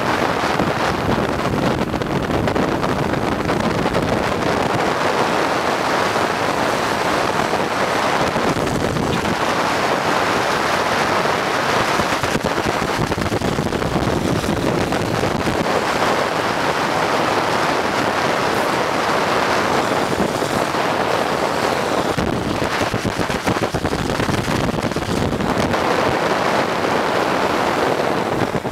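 Loud, steady rush of wind buffeting the microphone of a camera moving fast down a road, with road noise underneath, swelling and easing every few seconds.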